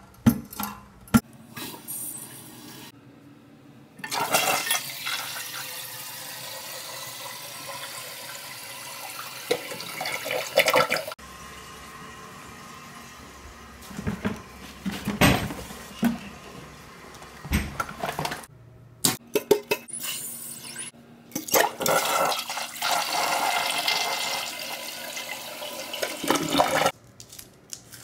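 A toilet flushing twice, each time water rushing for several seconds with a sudden start, and a few knocks and rustles between the two flushes.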